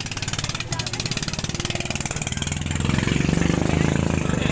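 Boat engine running steadily with a fast, even beat, growing louder about three seconds in.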